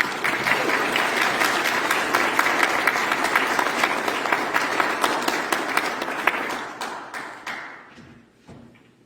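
Audience applauding, many hands clapping at once. The applause starts suddenly, holds strong for about six seconds, then thins out and dies away.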